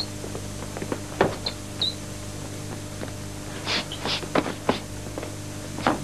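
Irregular thuds and slaps of low kicks (pananjakman), hand strikes and footwork on the mat during sparring, with a few short high squeaks, over a steady low hum. The hits cluster about a second in, around four seconds in and again near the end.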